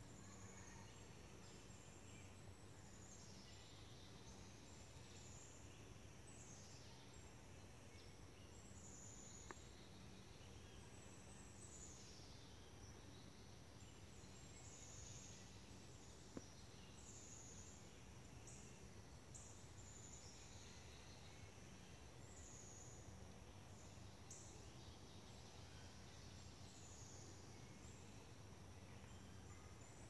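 Faint summer forest ambience: a steady high hum from small creatures, with short high calls sliding downward and repeating every second or two. Two faint ticks, the sharper one about sixteen seconds in.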